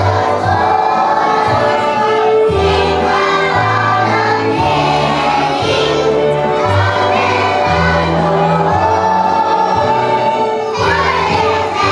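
A young children's choir singing a Christmas song with instrumental accompaniment, over a bass line that moves from note to note about once a second.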